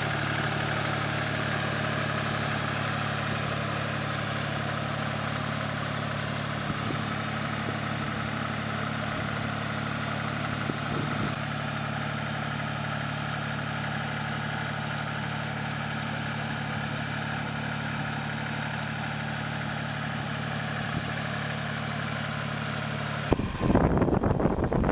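Small tractor's diesel engine running at a steady speed while it pulls a rotary tiller. About a second and a half before the end it cuts abruptly to a louder, rougher rumble.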